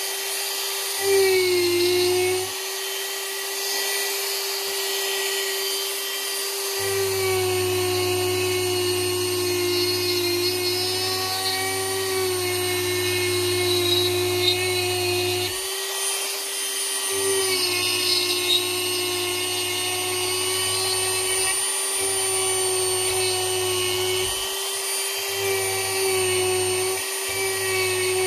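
Dremel rotary tool running at high speed, carving into wood: a steady high whine that sags briefly in pitch a few times as the bit bites into the wood.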